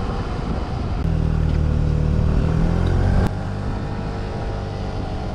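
Suzuki Burgman 200 scooter's single-cylinder engine running under way. It is louder and steady from about a second in, then drops abruptly about three seconds in.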